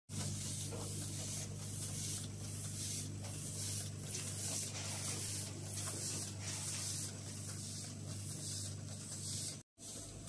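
Vibratory feeder hopper shaking rice off its tray into the buckets of a bucket elevator: a steady low hum under the hiss of rice grains sliding and pouring, which swells and fades in quick pulses. The sound cuts out for a moment near the end.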